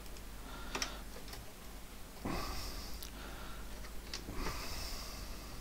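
Two breaths close to the microphone, about two and four seconds in, with a few faint sharp clicks scattered between them.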